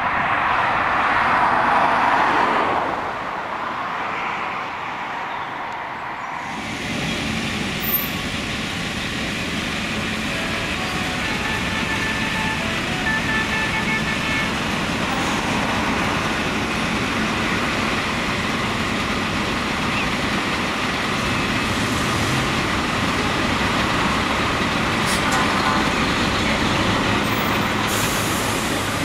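Heavy diesel trucks on the road: first the more distant rumble of a lorry convoy on a dual carriageway, then, after a sudden change about six seconds in, trucks and vans driving past close by one after another, with steady engine and tyre noise.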